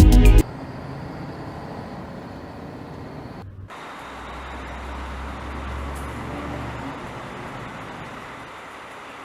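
Music cuts off, leaving the steady noise of heavy machinery running, with a deeper engine rumble from about four to seven seconds in.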